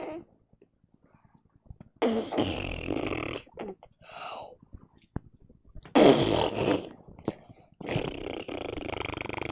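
Three long, rasping fart sounds: one about two seconds in, a loudest one about six seconds in, and a long one near the end. A short voice-like sound falls between the first two.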